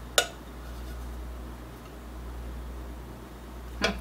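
Metal cans of diced tomatoes being handled over a slow cooker: one sharp knock just after the start, a faint steady low hum, then a quick run of clinks and knocks just before the end.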